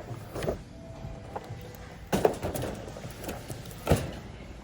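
Items being handled and set into a shopping cart: three sharp knocks and clatters, the loudest about two seconds in and another near the end, with faint shuffling between.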